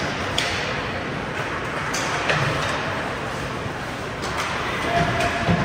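Ice hockey game in an arena: a steady wash of skates scraping the ice and rink noise, with several sharp clacks of sticks and puck.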